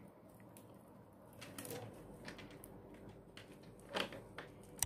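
Faint clicks and rustles of small transparent faceted beads knocking together as the beadwork is handled and fishing line is drawn through them, with two sharper clicks near the end.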